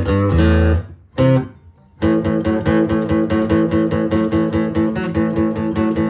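Acoustic-electric guitar played through an amplifier, strumming chords. There is a short break about a second in, then fast, even strumming.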